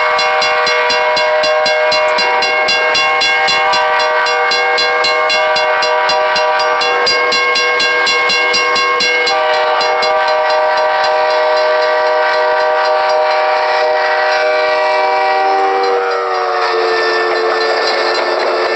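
Multi-chime train air horn sounding one long continuous chord of several tones. The chord shifts slightly about nine seconds in, and near the end it slides lower in pitch.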